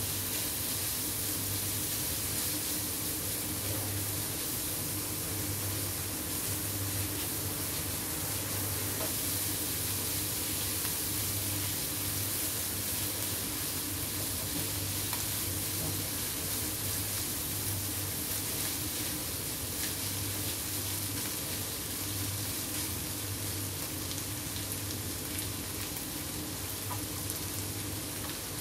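Rice vermicelli, bok choy and other vegetables sizzling steadily in a hot non-stick pan as they are stir-fried, with a spatula stirring and faint ticks of utensils against the pan.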